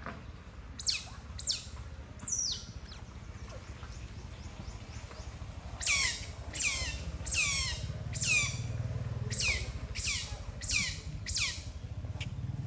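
Otter giving high chirps that each slide sharply down in pitch: three early in the sound, then a quick run of about eight, roughly one every two-thirds of a second.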